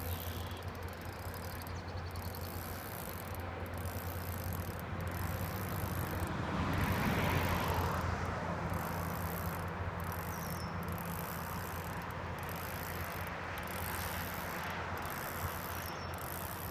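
Steady outdoor background noise at the pond's edge: a constant low rumble that swells and fades about seven seconds in, with a faint high buzz above it that breaks off every second or so.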